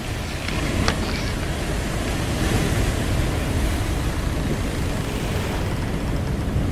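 Sea waves washing and wind, with a steady low rumble, and a few short creaks of a sailing ship's wooden deck about a second in.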